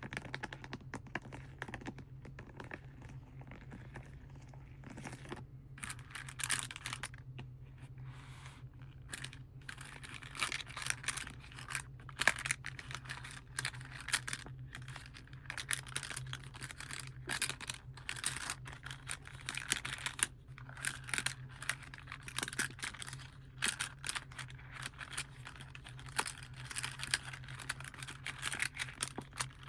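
Plastic and foil crinkled and crumpled by hand in dense, irregular crackles with brief pauses, over a steady low hum.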